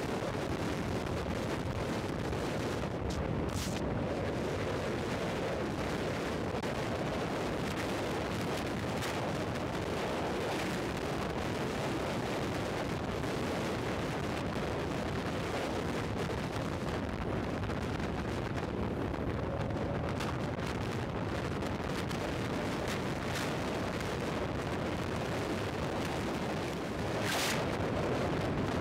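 Royal Enfield Thunderbird 500's single-cylinder engine running at highway cruising speed, its exhaust thump buried in a steady rush of wind on the camera microphone.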